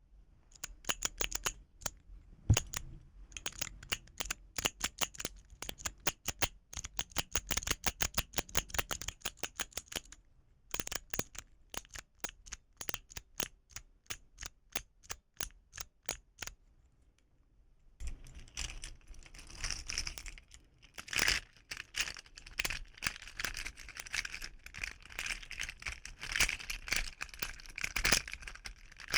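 Keys of a keyboard fidget toy being pressed and clicked in quick succession, several clicks a second. The clicking stops a little past halfway, then resumes in a denser, clattering run.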